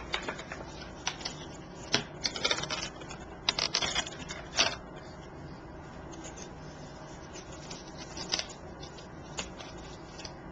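Card stock and craft materials being handled at a table: rustling and sharp little clicks, busy for the first five seconds or so, then only a few scattered ticks.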